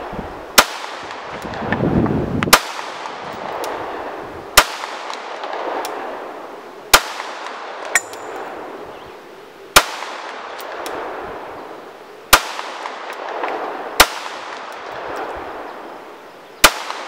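Glock 19 Gen 4 9mm pistol fired eight times in slow, aimed single shots, one every two to three seconds. Each sharp report is followed by a long rolling echo.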